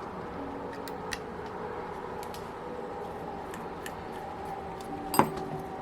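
Light metallic clicks of small tools and parts being handled while a Magnum 91 model glow engine is taken apart, with one sharper clink about five seconds in, over a steady faint hum.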